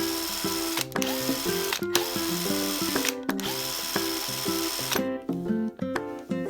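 Hitachi FWH7DL pen-type cordless impact driver running free in four trigger bursts of about a second each, its motor whining up to speed after each pause. It stops about five seconds in.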